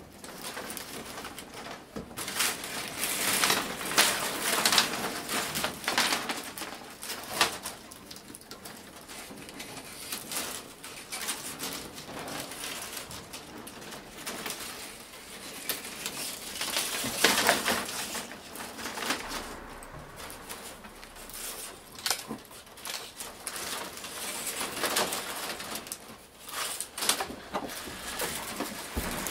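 Split-bamboo strips rustling, scraping and clicking against one another in irregular bursts as they are plaited by hand into a twill-woven winnowing basket (ajiro-mi).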